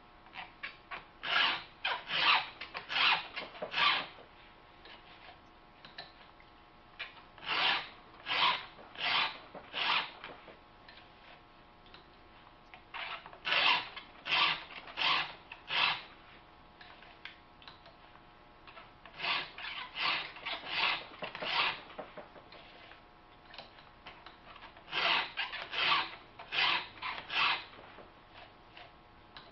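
Chainsaw file rasping across the cutter teeth of a Husqvarna saw chain in an Oregon file guide, sharpening it by hand. The strokes come in sets of about four, one set per tooth, with a few seconds' pause between sets.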